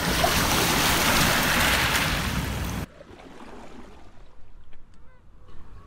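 Steady rushing noise of wind and river water at the water's edge, cutting off suddenly about three seconds in. After that only faint sound remains, with a few soft chirps.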